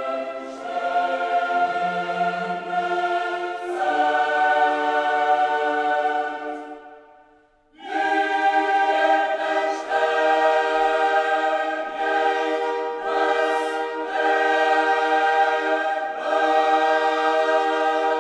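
Choral music: voices holding long, sustained chords. The music fades out about seven seconds in and a new chord starts about a second later.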